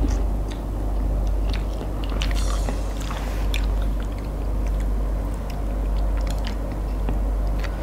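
Slurping and chewing Korean instant ramyun noodles: a slurp about two seconds in, then wet chewing with many small mouth clicks, over a steady low hum.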